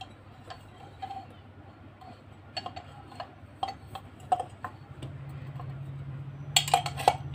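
Light scattered clicks and taps of hands handling a desk lamp's metal shade and its cord, with a quicker cluster of louder clicks near the end. A low steady hum comes in about two thirds of the way through.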